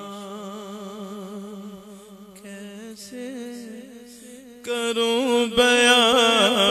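A man chanting devotionally in long held notes with a wavering vibrato, amplified through a microphone. He grows much louder about two-thirds of the way through.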